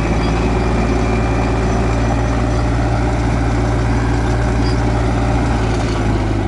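Belarus 510 tractor's diesel engine running steadily in a low drone as it pulls a potato planter through the soil.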